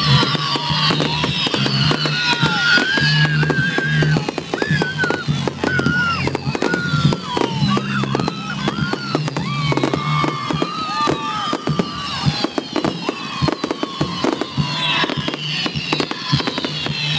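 Fireworks barrage firing continuously: a rapid run of overlapping whistles, each falling in pitch, over dense crackling and popping.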